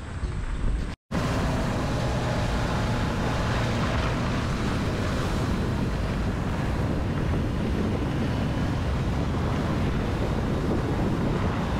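Wind blowing over the microphone: a steady rushing noise with a heavy low rumble, starting after a brief cut to silence about a second in.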